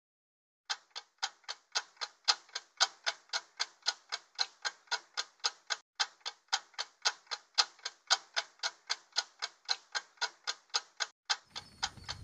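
Stopwatch ticking sound effect: a steady run of sharp ticks, about four a second, starting just under a second in.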